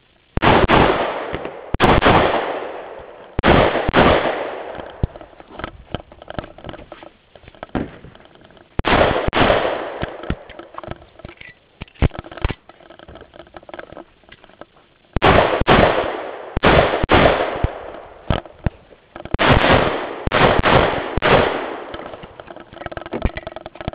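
Semi-automatic pistol fired in quick strings of shots, with pauses of a second to a few seconds between strings, each shot followed by a short echo.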